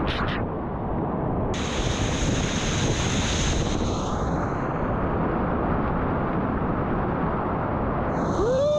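Whitewater rapids rushing loudly around a kayak running them, a steady churning noise with spray and water splashing over the camera. Near the end a brief tone rises and falls.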